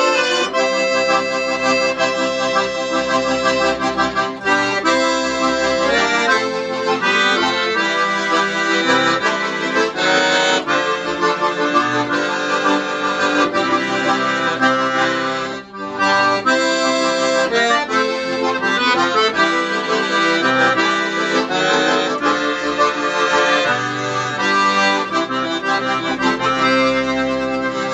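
Two piano accordions playing a slow hymn together in sustained chords and melody, with a brief break between phrases just past halfway.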